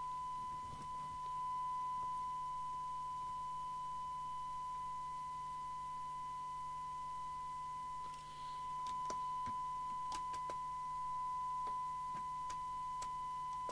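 Steady single-pitched test tone from a signal generator, received by a CB radio on the bench and heard as its audio output while the S-meter is checked. A few light clicks come in the second half.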